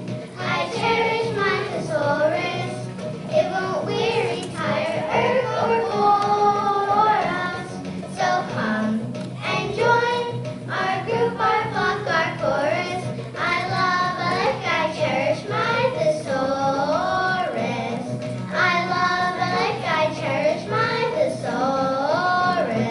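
Children singing a song together over musical accompaniment, the melody carried without a break through the whole stretch.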